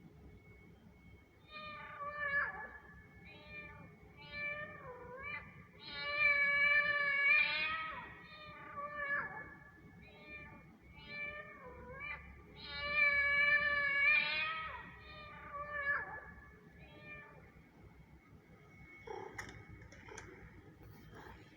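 Kitten meowing over and over: short meows and two longer drawn-out meows, the same sequence coming round again about six seconds later.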